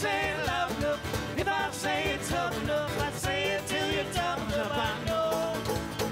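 Live folk band playing: banjo, acoustic guitar and bass guitar over a steady cajon beat.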